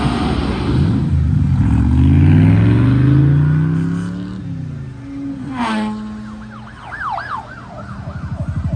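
Vehicle sound effects from a sound test played through a Sonos Beam Gen 2 soundbar: an engine revving up in pitch, a quick falling sweep, then a wavering siren-like tone. A rapid pulsing engine note starts near the end.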